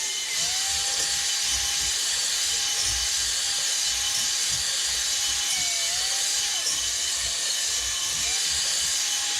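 Drill spinning a spring-loaded cylinder hone inside a Honda CB250/400 Superdream cylinder barrel: a steady motor whine over the hiss of the abrasive stones scouring the bore to take out grooves. The whine dips briefly a few times as the drill's speed changes.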